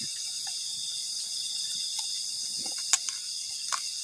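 Steady insect chorus of crickets chirring in the forest, several high pitches layered together without a break, with a couple of light clicks about three seconds in.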